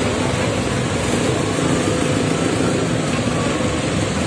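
Engines of modified off-road 4x4s running steadily as the vehicles roll slowly past one after another.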